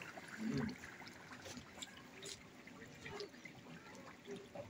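Carnitas pork simmering in lard in a large metal pot: faint bubbling with scattered small crackles.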